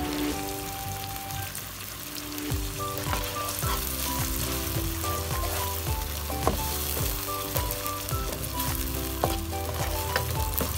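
Garlic, red onion and ginger sizzling in oil with soy sauce and oyster sauce in a nonstick wok, a steady frying hiss with scattered clicks and scrapes as a spatula stirs them. Soft background music notes sit underneath.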